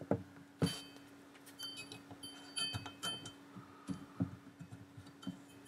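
Scattered small metallic clicks and taps, some with a short metallic ring, as a hex (Allen) key works the set screw in the lever of a chrome single-lever mixer tap. A faint steady hum runs underneath.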